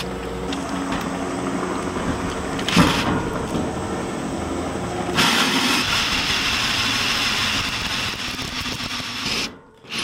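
Cordless hammer drill spinning a bi-metal hole saw into the galvanized steel wall of a stock tank: a steady motor whine with one sharp knock about three seconds in, then from about five seconds a louder, harsher grinding of the saw teeth cutting metal. It stops suddenly shortly before the end.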